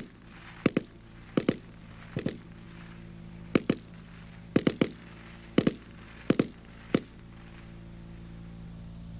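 Browning Automatic Rifle in .30-06 firing from its bipod in short bursts, about eight bursts of two or three shots each, the last a single shot.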